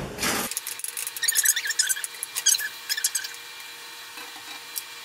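Spoon scraping and clicking against a bowl as flour is stirred into a soft dough, in a quick run of short scrapes that stops about three seconds in, followed by quieter handling of the dough.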